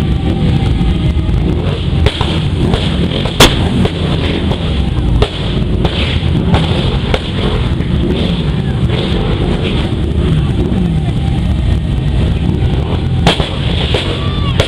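A procession of Harley-Davidson V-twin motorcycles rolling past at parade pace, their engines running together in a loud, steady, deep mix, with individual bikes rising and falling in pitch as they rev. Two sharp bangs cut through, about three seconds in and near the end.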